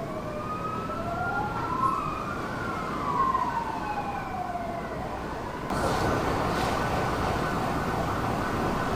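Emergency vehicle sirens wailing, two slow rising-and-falling tones overlapping. After about five and a half seconds the sound cuts to a denser, rougher noise with one steady held tone.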